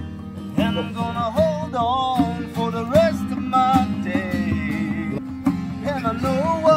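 Background music: guitar chords with a lead melody that slides and wavers in pitch.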